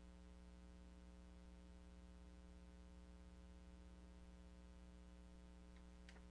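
Near silence: room tone with a faint steady electrical hum, and a couple of faint ticks near the end.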